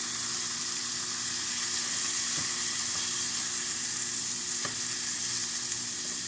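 Hamburger patties sizzling steadily in a hot frying pan, with two faint clicks partway through.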